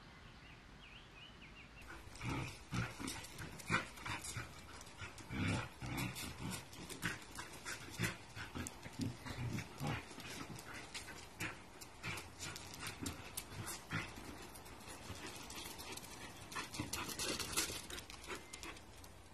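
A white long-haired dog making a long run of short, irregular sounds, starting about two seconds in.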